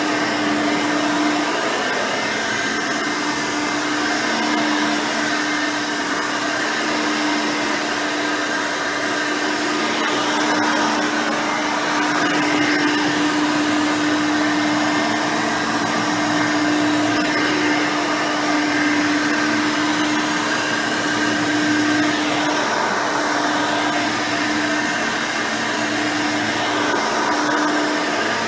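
Hoover Elite 5.0 upright vacuum running steadily on its rebuilt original 5-amp motor with a 7-blade fan, a constant motor hum over airflow noise. It is at work cleaning carpet.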